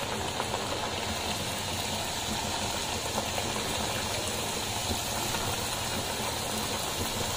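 Papdi discs of wheat-flour and semolina dough deep-frying in very hot oil: a steady sizzling and bubbling.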